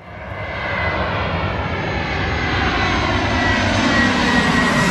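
Airliner passing low overhead on its landing approach: loud engine noise that builds over the first second, with a high whine and several tones sliding slowly down in pitch as it goes by.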